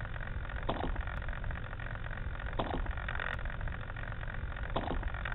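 Onboard camera audio from a radio-controlled model plane: a steady rushing noise with a low hum, and a faint click about every two seconds.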